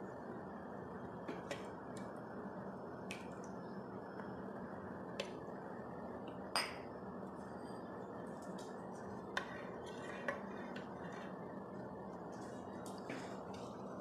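Occasional light clicks and clinks of bowls and dishes being handled and set down on a table, the sharpest about six and a half seconds in, over a steady low hiss.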